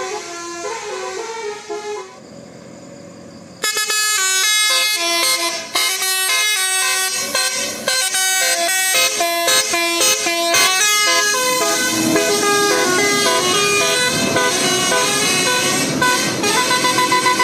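Telolet basuri multi-tone bus horn playing a quick tune of stepped notes. It breaks off about two seconds in for a second and a half of low noise, then starts again louder and keeps playing.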